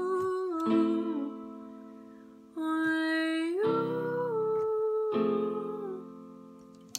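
Closing bars of a song: four guitar chords, each struck and left to ring and fade, with a woman's voice humming a sliding melody over the first ones. A short click comes right at the end.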